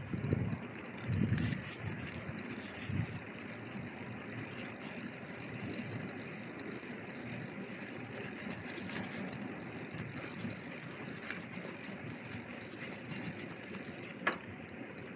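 Bicycle being ridden: steady rolling noise of tyres and drivetrain with a high hiss that sets in about a second in, low wind buffets on the microphone at first, and a single sharp click near the end.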